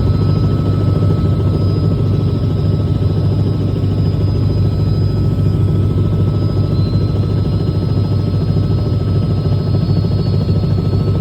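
Robinson R66 helicopter in steady flight: a constant drone of the main rotor and Rolls-Royce RR300 turboshaft engine, with a thin steady whine above it.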